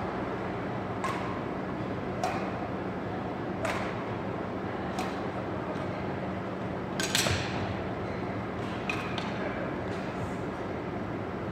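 Badminton racquets striking a shuttlecock in a rally, a sharp crack about every second and a half, the loudest a quick cluster a little past the middle. Under it runs the steady hum of the gym's ventilation.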